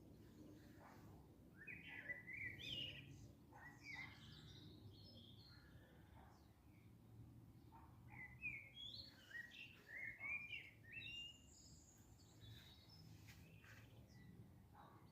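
Songbird singing: two bursts of quick, warbling high notes, one about two seconds in and another about eight seconds in, over faint steady background noise.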